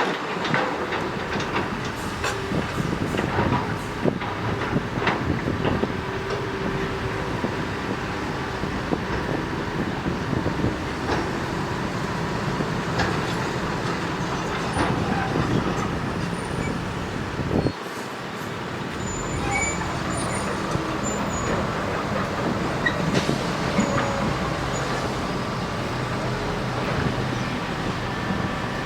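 Heavy earthmoving machinery at work: a diesel engine runs steadily under irregular metallic clanks and knocks. The sound dips and changes briefly just before halfway.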